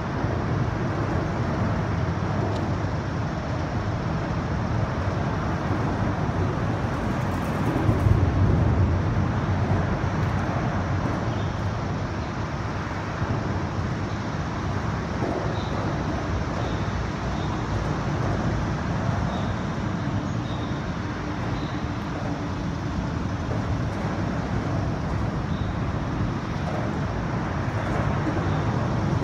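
Steady rumble of road traffic on the elevated highway overhead, swelling louder about eight seconds in.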